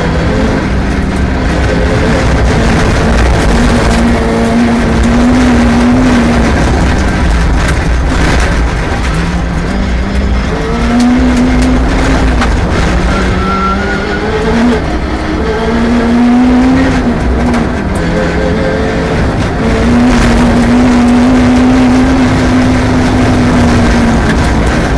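Rally car engine running hard on a special stage, its revs climbing, holding and dropping again several times, over steady road and tyre noise.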